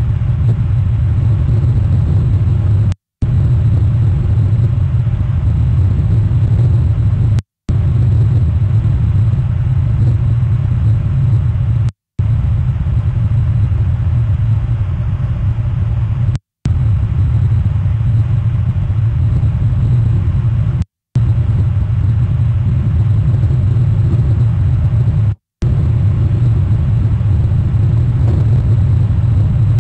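Steady low rumble of a cruise ship's engines heard from a distance. The sound cuts out completely for a moment about every four to five seconds.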